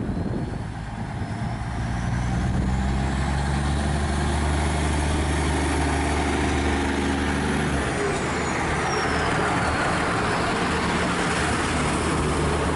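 Irish Rail 2800 Class diesel multiple unit pulling away and passing close by: its diesel engines run under load with a thin whine that rises in pitch for several seconds, then drops about eight seconds in as the engine note changes, while the running noise grows as the carriages go past.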